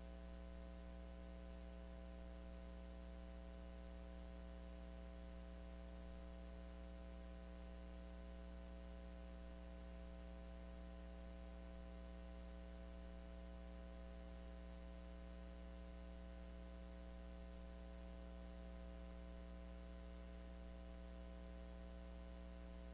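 Steady low hum with several unchanging tones over a faint hiss, without any change as the cut goes on.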